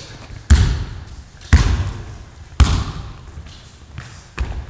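Basketball bouncing on a gym floor: three loud thuds about a second apart and a softer one near the end, each echoing in the large hall.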